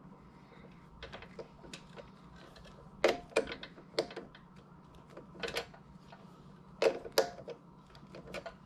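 Scattered light metallic clicks and knocks, some in quick pairs, from hands handling the parts of a Harbor Freight mini lathe around its chuck and tool post while the spindle is stopped.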